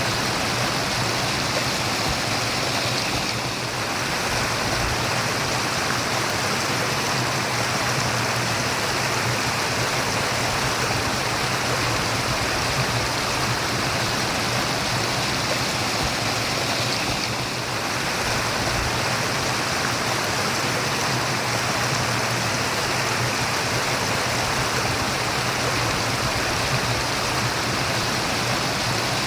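Murmuring stream of running water, a steady rushing babble, dipping slightly in level briefly twice, about three and a half seconds in and again near the middle.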